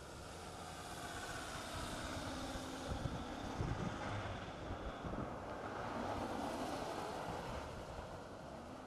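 Pickup trucks driving past, engine and tyre noise swelling and then fading near the end, with a few low thumps partway through.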